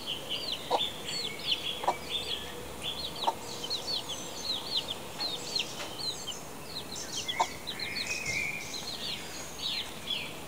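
Chicks peeping: a steady string of short, high peeps that fall in pitch, several a second, with a few short lower notes in between.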